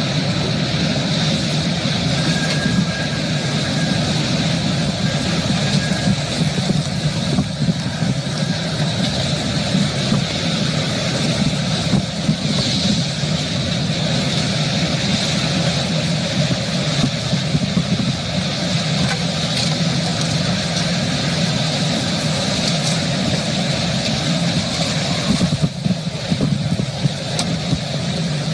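Steady, loud rushing noise of tornado wind and rain around a vehicle, with a low rumble underneath.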